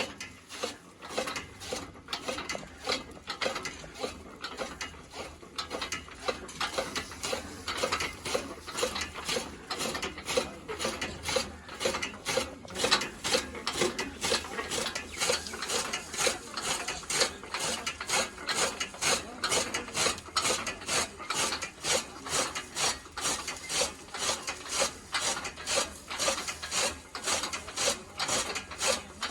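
A traditional hand-built desi machine running with a steady, regular mechanical clacking, a few clicks a second, like a ratchet or gears turning.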